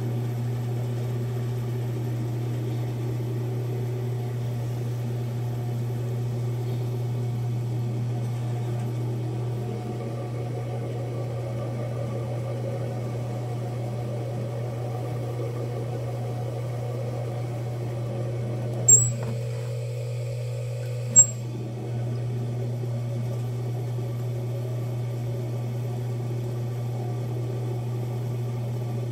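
Electric pottery wheel motor humming steadily as the wheel spins. Two sharp clicks come about two seconds apart about two-thirds of the way in.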